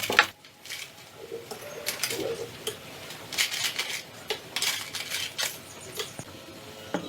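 Irregular light clinks, clicks and knocks of hard metal and plastic parts being handled and set down.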